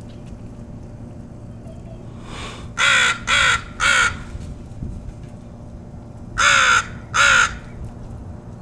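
Crows cawing: harsh calls, a faint one and then three in quick succession about three seconds in, and two more about six and a half seconds in.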